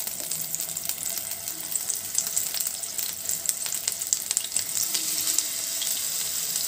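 Marinated chicken pieces sizzling and crackling as they fry in melted butter in a hot nonstick pan, more pieces being laid in one by one.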